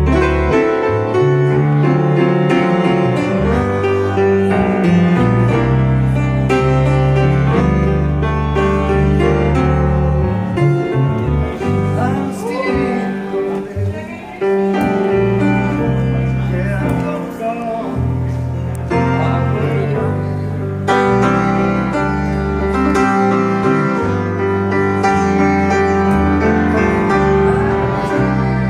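Piano and a plucked electric upright bass playing together, the bass stepping from note to note under the piano's chords and melody.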